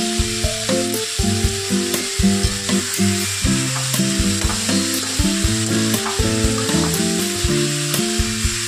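Potatoes and green beans sizzling in hot oil in a metal kadhai, with a perforated steel spatula scraping and clicking against the pan as they are stirred. A melodic tune of changing notes plays underneath.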